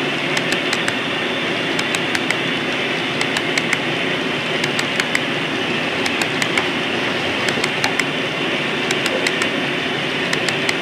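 HO-scale model coal hopper cars rolling past on the track: a steady rumble with sharp clicks coming in quick clusters of three or four as each car's wheelsets cross a rail joint.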